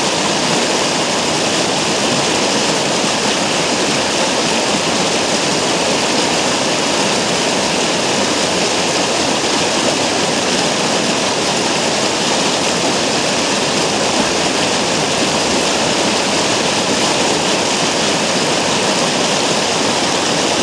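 Fast stream water rushing and splashing over a large rock, a loud, steady rush.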